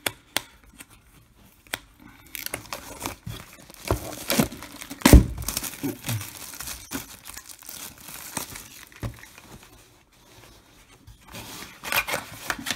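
Plastic shrink-wrap being torn and crinkled off a cardboard trading-card hobby box, with irregular crackling and rustling as the box is handled and turned. One loud thump about five seconds in, with a brief lull near the end before more crinkling.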